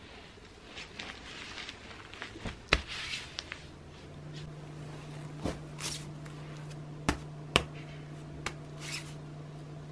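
A clear plastic bag stuffed with skeins of yarn being handled and patted, the plastic crinkling in short irregular bursts with a few sharp clicks. A steady low hum comes in about four seconds in.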